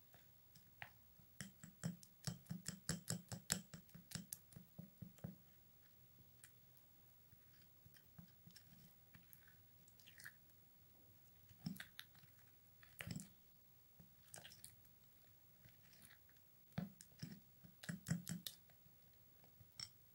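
Plastic spoon stirring wet henna paste in a small glass bowl: faint wet clicks and scrapes, a quick run of them for a few seconds, then scattered taps and a short burst near the end.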